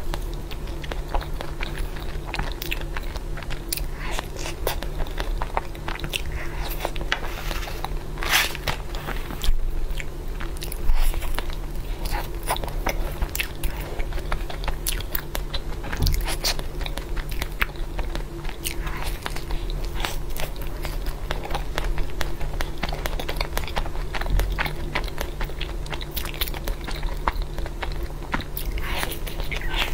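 Close-miked biting and chewing of desserts, first a chocolate glutinous-rice mochi and then a cookie-crusted cream puff. There is a steady run of small crunches and clicks over a faint, steady low hum.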